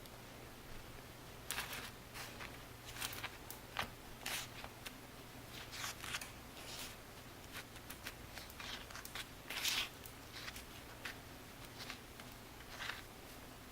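Kitchen food-preparation handling: irregular soft rustles, scrapes and light taps, with a faint steady low hum underneath.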